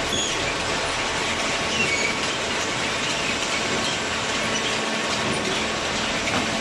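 Small hydraulic cardboard baler running: a steady mechanical din with a faint hum and short, high squeaks scattered through it.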